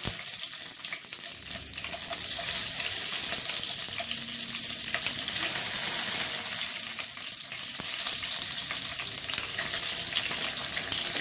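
Dried red chillies and spluttered mustard seeds frying in hot oil: a steady sizzling hiss with scattered small crackles and pops. This is the tempering stage, with the chillies going into the oil after the mustard has popped.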